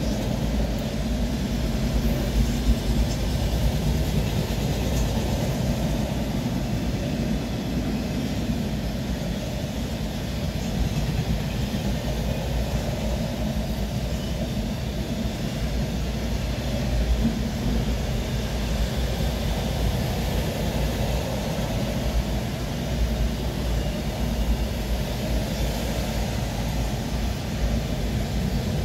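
Freight train rolling past, a steady rumble of wheels on rails with a hiss above it.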